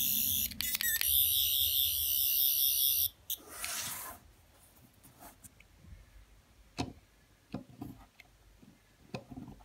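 Tenth Doctor sonic screwdriver toy sounding its high, warbling electronic buzz, which breaks up briefly about half a second in and cuts off after about three seconds. A short rustle and a few light taps follow as the toy is set on its coin-shaped stand.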